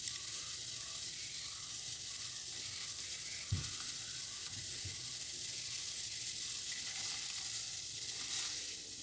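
Steady hiss of water at a rolling boil in an aluminium pot on a lit gas burner, as rice ada flakes are tipped in from a ceramic bowl. Two soft low thumps come about three and a half and five seconds in.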